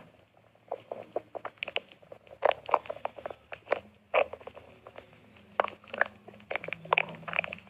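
A person's stomach growling: rapid, irregular gurgling pops and squelches, with a low rumble coming in toward the end.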